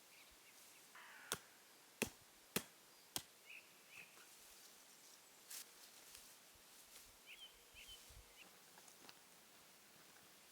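Four sharp knocks about half a second apart in the first few seconds, then faint short bird chirps over a quiet forest background.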